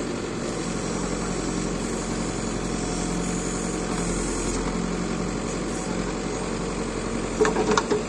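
Tractor diesel engine running steadily while it powers a tractor-mounted backhoe's hydraulics as the bucket dumps sand and the boom swings. Near the end come a few sharp knocks.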